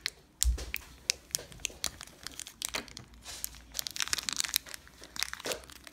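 Crinkly yellow plastic blind-bag wrapper being pulled open by hand: a steady run of crinkles and crackles, with a soft low knock about half a second in.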